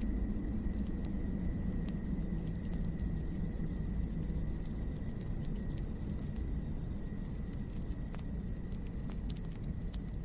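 Wood fire crackling with scattered sharp pops over a low steady rumble, under a continuous high chirring of crickets.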